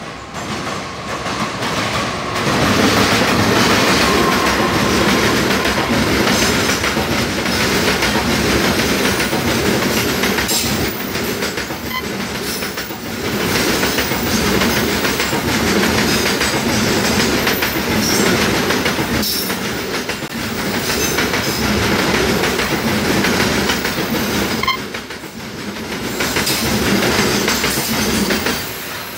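Freight train passing close on the nearest track: the diesel locomotive comes by a couple of seconds in, then a long line of tarpaulin-covered wagons follows, its wheels clattering rhythmically over the rail joints in a loud, steady rumble.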